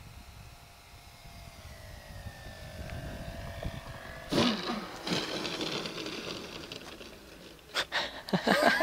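Radio-controlled model airplane's motor and propeller running at low throttle, its whine sinking slowly in pitch as the plane comes in to land. About four seconds in, a sudden, louder, rougher noise takes over, and a few sharp knocks follow near the end.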